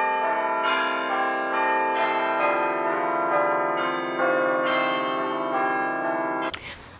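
Bell-like chimes ringing in overlapping, sustained notes, with new notes joining every second or so. They stop about six and a half seconds in.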